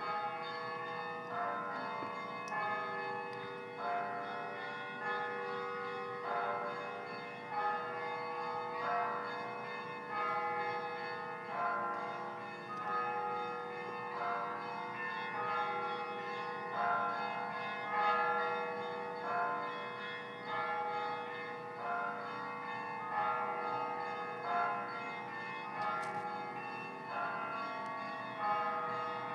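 Russian church bell ringing (kolokolny zvon): several bells are struck together in a phrase that repeats about every second and a quarter, over a steady low hum held underneath.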